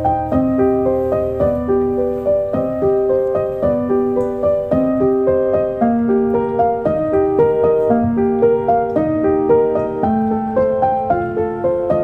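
Background piano music: a steady, even run of single notes.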